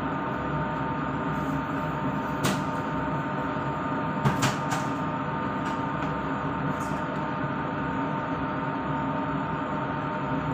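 Steady hum of a kitchen range-hood extractor fan, with a few short knocks and clatters of kitchen things being handled; the loudest are two knocks close together about four seconds in.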